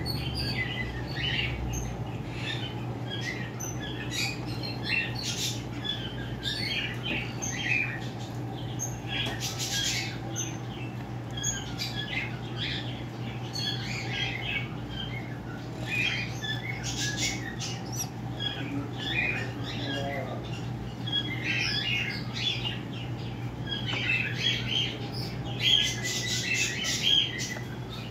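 Puppy whimpering and squeaking: many short, high-pitched squeaks in irregular runs, busiest near the end, over a steady low hum.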